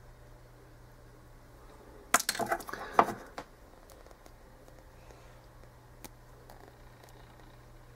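Small fly-tying scissors being handled: a short flurry of metal clinks and rattles about two seconds in, then a single light click about six seconds in, over a faint steady low hum.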